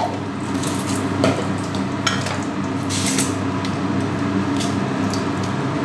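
Dried red chilli frying in hot mustard oil in a wok: a steady sizzle with a few sharp crackles.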